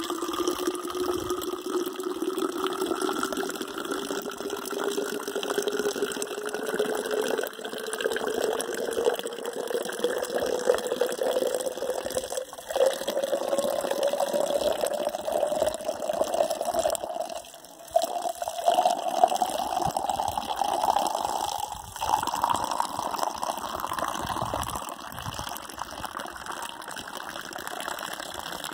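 Snowmelt water running into a blue plastic water bottle: steady splashing with a tone that rises slowly in pitch as the bottle fills. The flow falters briefly about twelve and twenty-two seconds in, and drops away for a moment about eighteen seconds in.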